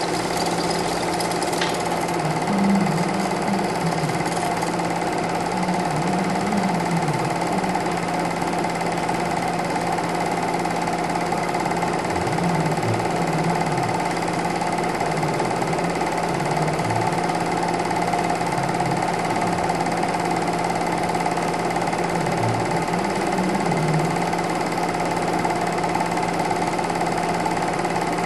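Steady mechanical whir and clatter of a film projector running.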